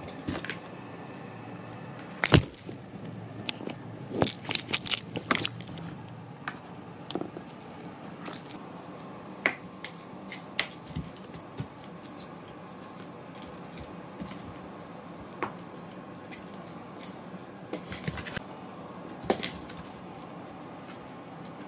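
Munchkin cats' paws thumping and scrambling on a carpeted floor as they leap and swat at a cat teaser: scattered taps and knocks, the loudest a sharp knock about two seconds in, with a quick cluster of taps a couple of seconds later.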